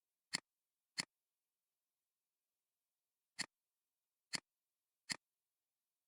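Five sharp computer mouse clicks, two close together near the start and three more in the second half.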